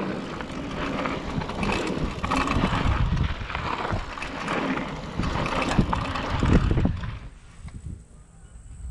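Wind buffeting the camera microphone and tyres crunching over gravel as a downhill mountain bike rides a dirt trail, with knocks and rattles from the bike over bumps. About seven seconds in the noise falls away to a much quieter background.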